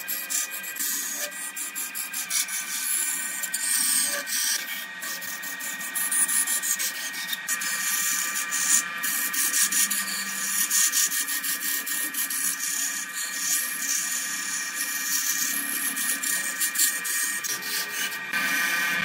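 Electric wood lathe running while a hand-held turning tool cuts into a spinning jackfruit-wood blank, a continuous scraping with dense ticking and a steady tone underneath. It grows a little louder near the end.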